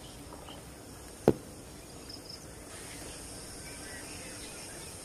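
Steady high insect drone with a few faint bird chirps, and one sharp knock about a second in.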